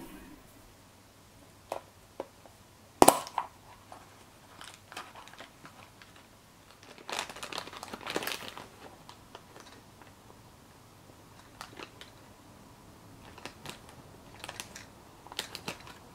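A plastic capsule-toy ball snaps open with one sharp click about three seconds in. Several seconds later a thin plastic bag crinkles as the small plastic train toy is unwrapped, with light plastic clicks and taps as the toy is handled.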